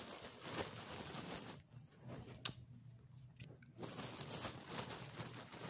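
Crisp fried molen pastries crunching as they are bitten and chewed close to the microphone, mixed with a plastic bag rustling.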